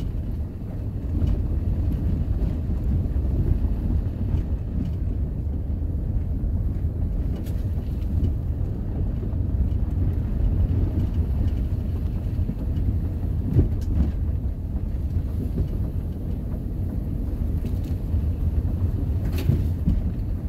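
Vehicle driving, heard from inside the cab: a steady low engine-and-road rumble, with a few faint knocks late on.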